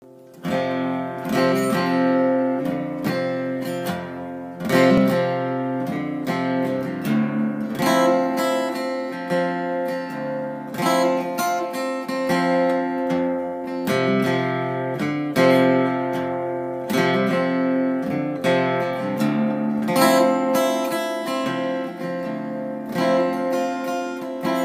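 Acoustic guitar playing an instrumental introduction, chords struck in a steady slow rhythm and left to ring, with no singing.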